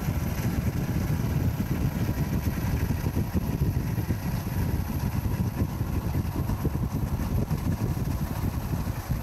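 Boat engine running at a steady idle, a dense low rumble, with wind buffeting the microphone.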